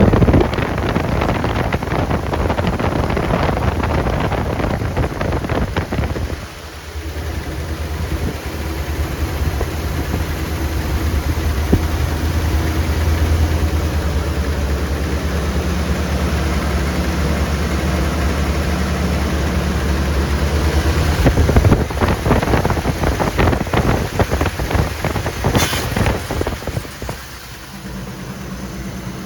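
1982 Chevrolet C10 engine running steadily on a freshly installed, untuned replacement Rochester 2SE carburetor. The level dips briefly about six seconds in, turns rougher and uneven later on, and settles into a quieter idle near the end.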